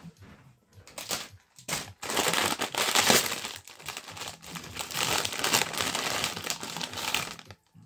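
Crinkling and crumpling of wrapping material being handled in a run of dense rustles. It starts about a second in and stops shortly before the end.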